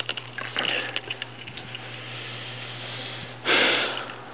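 Rustling and handling noise with scattered clicks, over a low steady hum. About three and a half seconds in comes a short loud rush of noise that fades away.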